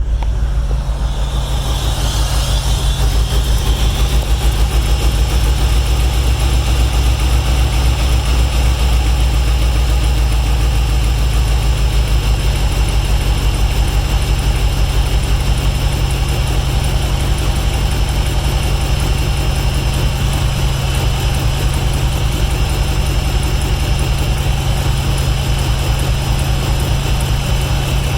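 1996 Chevrolet Impala's 5.7-litre V8 running steadily at idle just after starting, with a thin steady whine above the engine note. The car has a fuel-delivery fault with no pressure at the fuel rail; with a new fuel filter it now keeps running instead of dying straight after a crank.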